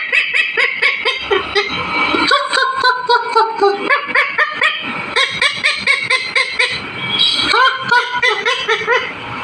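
Pet rose-ringed parakeet chattering and talking in a rapid string of short, squeaky calls, several a second.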